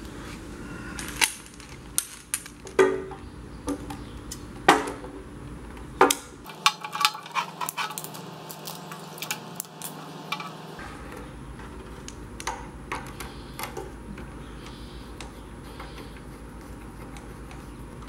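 Handling noises from a pressure-washer hose and its fittings: scattered sharp clicks, knocks and light rattles, most of them in the first half and thickest in the middle, as the hose is uncoiled and its end is brought to the pump outlet.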